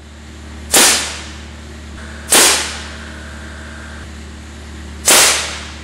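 Improvised PVC compressed-air gun firing three times, each a sharp blast that dies away in about half a second, over a steady low hum.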